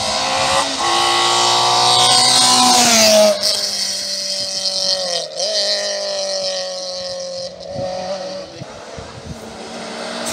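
Competition car's engine at high revs on a hillclimb: the pitch climbs steadily for about three seconds, drops sharply, then rises and falls again a few times as the driver shifts and lifts.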